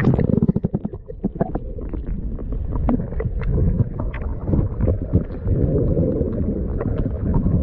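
Steady low rumble of wind buffeting the microphone on the shore, with scattered small clicks and knocks.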